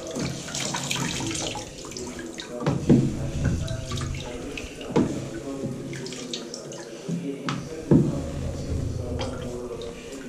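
A sponge grout float being rinsed in a plastic tiling wash bucket: water sloshing and splashing as the sponge is scrubbed back and forth over the bucket's grid to wash the grout out. A few sharp knocks, about three, five and eight seconds in, as the float strikes the bucket.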